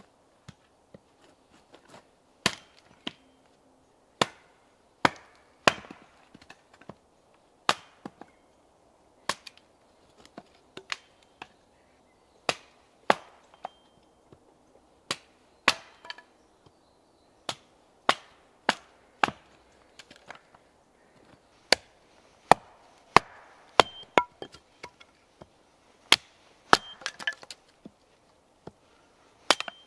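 Small axe chopping and splitting firewood on a stump chopping block: sharp wooden chops about once a second, irregularly spaced, some in quick pairs, with light rustling of wood pieces between strikes.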